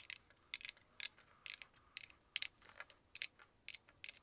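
Mah jongg tiles clicking as they are picked one by one from the pile and set onto a plastic tile rack: a quick, irregular string of sharp clicks.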